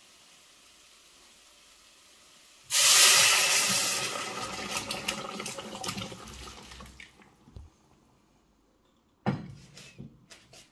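Boiled potatoes and carrots with their cooking water poured from a pot into a steel pan of fried onions: a sudden loud splash and hiss about three seconds in that fades with crackles over the next few seconds. A single knock of utensils on the pan about nine seconds in, followed by a few clicks.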